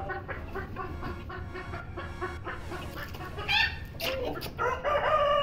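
Chickens clucking in a string of short calls. Near the end a rooster starts a long, drawn-out crow.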